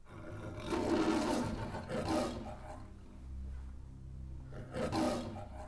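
The MGM logo's lion roaring three times, the third roar near the end, played through a home-theater speaker system with subwoofers and picked up in the room. A steady low bass rumble sits beneath from about three seconds in.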